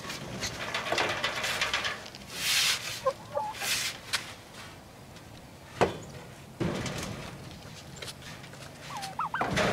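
Chickens clucking, a few short calls, with rustling and scraping as the coop is handled, and one sharp knock about six seconds in.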